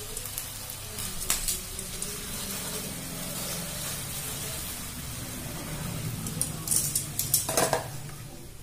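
Chicken pieces in a honey and soy marinade sizzling in a grill pan on a gas stove, turned with metal tongs that click against the pan a few times, most of all near the end.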